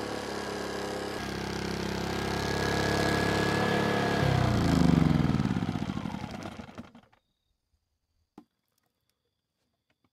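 Erayak 4500PDM inverter generator engine running steadily, then shut off about four seconds in, its pitch falling as it winds down to a stop within about three seconds. A single faint click follows.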